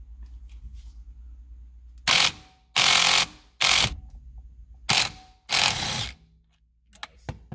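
Impact wrench hammering in five short bursts, starting about two seconds in, on a steering wheel's centre retaining nut to loosen it.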